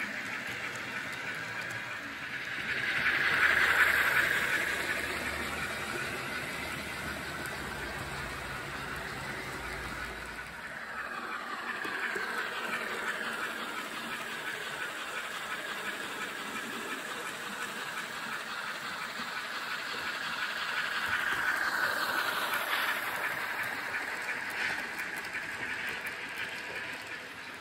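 N-scale model trains running on the layout's track: a steady rolling rattle of wheels on rail that swells twice as trains pass close, about 3 to 4 seconds in and again around 22 seconds.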